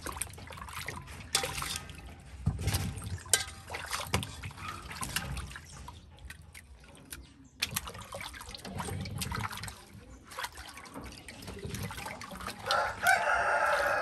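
Hands splashing and rubbing sweet potatoes and banana leaves in a metal basin of water, with water trickling and dripping and scattered knocks against the basin. Near the end a chicken calls loudly.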